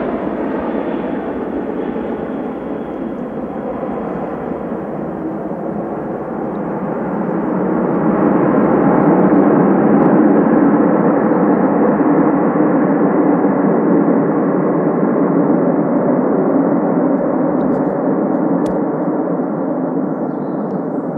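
Ilyushin Il-76TD-90VD's four PS-90A-76 turbofans roaring in reverse thrust during the landing rollout. The roar swells from about seven seconds in, peaks around ten seconds, then slowly eases as the aircraft slows.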